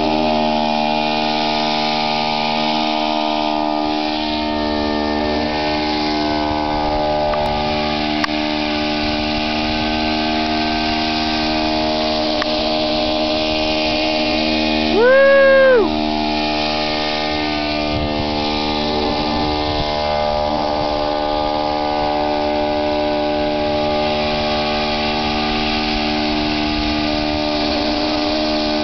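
Small 32cc two-stroke engine of an RC hovercraft running steadily as it drives the craft's ducted fan over water, its pitch wavering slightly now and then with the throttle. About halfway through, a loud one-second pitched tone sounds over it.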